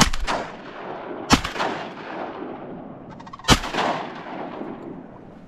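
Three shotgun shots, the second about 1.3 seconds after the first and the third about two seconds later, each followed by a long echo rolling away across the open marsh.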